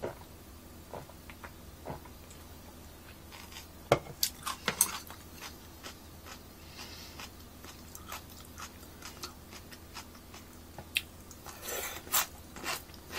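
Chopsticks clicking against a ceramic bowl and a person chewing crisp cucumber salad: scattered light clicks and crunches, with a quick run of sharp clicks about four seconds in and more near the end.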